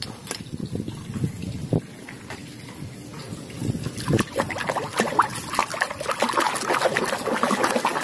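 A few light knocks of plastic toys, then from about four seconds in, water sloshing and splashing as a plastic toy excavator is swished and scrubbed by hand in a basin of water.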